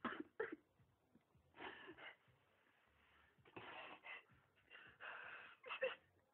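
A young man crying quietly: a run of short, breathy sobs and gasping breaths, with a few sharper catches near the end.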